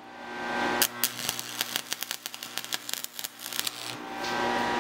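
Stick arc welding: the electrode crackles irregularly as it welds steel fence strips onto a steel bar. Near the end the crackle stops and a steady hum remains.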